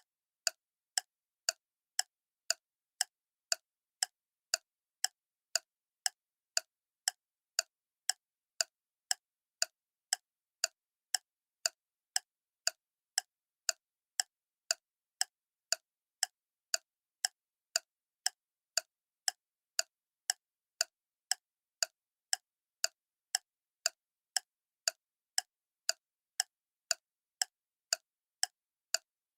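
Clock ticking steadily, crisp even ticks at about two a second.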